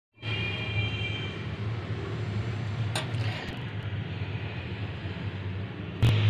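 A steady low mechanical hum, with a faint high whine that fades out within the first second and a single sharp click about three seconds in.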